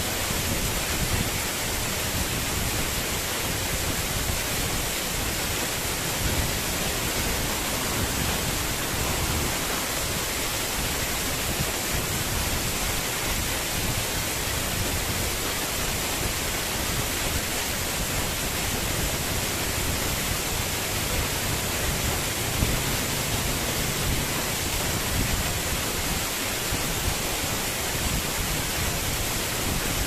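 Small waterfall pouring down a rock face and splashing onto the rocks below, a steady, even rush of falling water.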